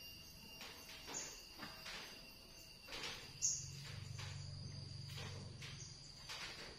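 Soft grass broom sweeping a tiled floor, faint short brushing strokes about one or two a second, over a steady thin high-pitched whine.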